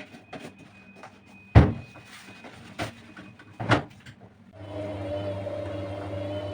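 Two sharp knocks, like a door or lid being shut, the first the louder, then a steady mechanical hum starts about four and a half seconds in.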